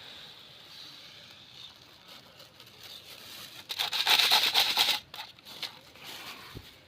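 Millet grain being poured, a rush of small pattering clicks about four seconds in that lasts just over a second, with a few scattered clicks after it.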